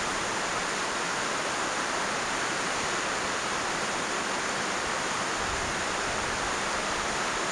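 Fast-flowing river water rushing steadily past rocks, an even hiss of moving water.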